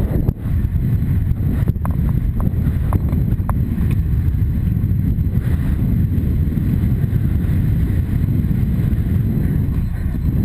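Wind buffeting a helmet camera's microphone as the horse gallops, a loud steady low rumble, with a few faint clicks about two to three and a half seconds in.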